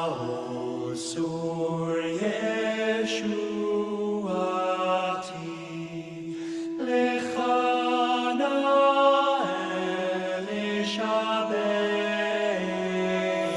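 Male a cappella vocal group singing slow, long-held chords that shift from one to the next, with no beat in this passage.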